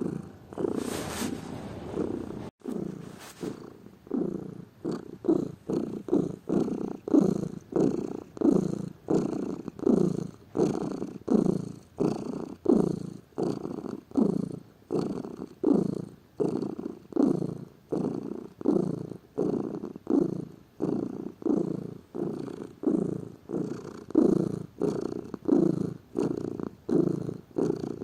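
Domestic cat purring close up, a steady rumble that swells and fades in a regular rhythm with each breath in and out.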